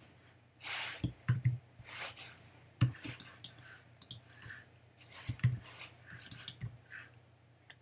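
Irregular clicks and taps of a computer keyboard and mouse, a few sharper ones standing out among lighter clicks.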